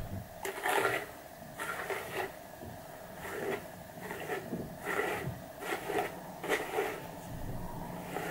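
A hairbrush drawn through long hair in repeated short strokes, about seven of them, at uneven intervals.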